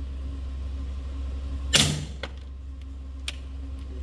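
A single suppressed 9mm gunshot a little under two seconds in, followed by a couple of faint clicks, over a steady low hum. The shot is fired with the suppressor fitted, under which the gun has been going out of battery.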